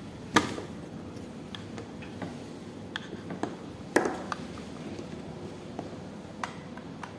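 An HDMI cable being handled and its plug fitted into a port, heard as scattered light clicks and taps. The sharpest knocks come about a third of a second in and about four seconds in.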